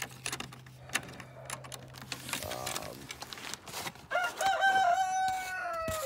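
Rustling and light clicks, then about four seconds in a rooster crows one long, drawn-out call that drops in pitch at the end.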